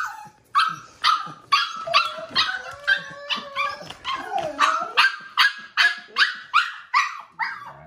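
A 5-week-old pitsky (husky–pit bull mix) puppy barking and yipping over and over, about two to three short high-pitched yaps a second without a break, in protest at being kept inside to wait while her siblings eat.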